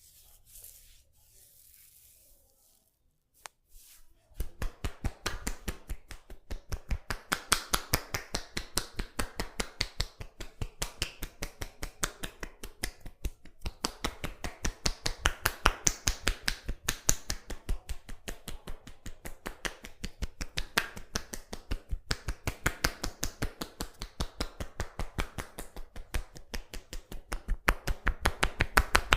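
Percussive massage: hands slapping and tapping rapidly on a person's head or body, several slaps a second in a fast, even rhythm that starts about four seconds in.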